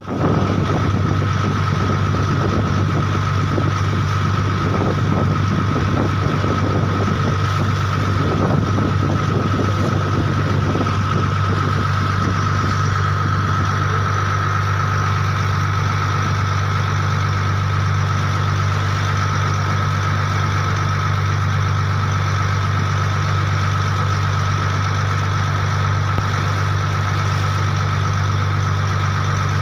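An engine running steadily at constant speed, a low hum with a steady high whine over it, with a few faint knocks in the first several seconds.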